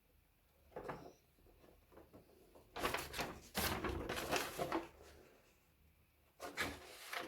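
Plastic model kit parts and their packaging being handled, rustling and clattering in three short spells.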